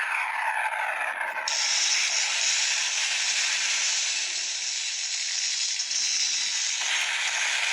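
Electronic sound effect from the Gokai Gun toy's speaker: a blast sound opening with quick falling zaps, then a long, loud hissing rush, with a change in the sound near the end.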